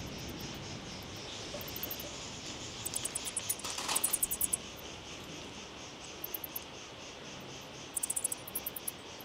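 Bats chittering in their roost: several bursts of rapid, very high squeaks over a steady hiss, as the colony wakes up.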